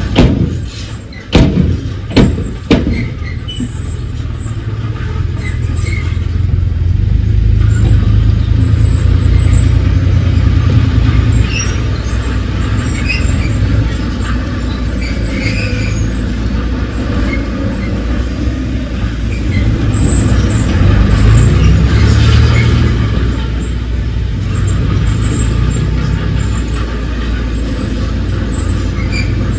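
Diesel engine of heavy earthmoving equipment running and working, its pitch and loudness rising and falling with load. There are a few loud knocks in the first three seconds.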